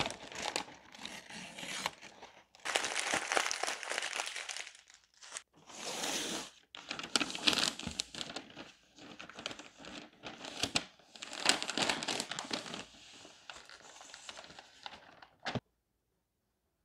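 Brown kraft paper wrapping being crinkled and torn as it is pulled off a cardboard shoebox, in irregular rustling bursts with short pauses. A single sharp tap comes near the end, and then the sound cuts off suddenly.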